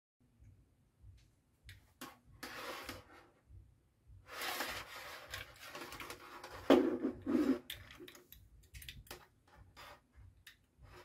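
Hand handling noises from wiring parts on a desk: wires and a plastic push-button pilot lamp being moved about, with scraping and rustling, a sharp knock a little past the middle, then a run of small clicks.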